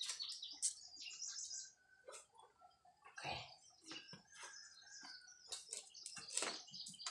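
Small birds chirping in quick, repeated high phrases, with a couple of short clatters about three and six seconds in.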